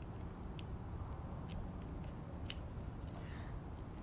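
A few faint, sharp clicks from plastic USB plugs and cable being handled, over a low steady background hum.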